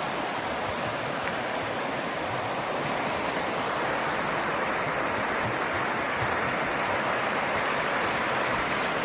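Small river cascade: water rushing and splashing over rocks in a steady, unbroken wash.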